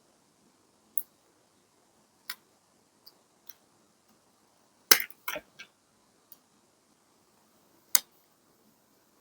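Scattered light taps and clicks of paper and craft materials being handled on a desk, with a louder cluster of clicks about five seconds in and another sharp tap near eight seconds.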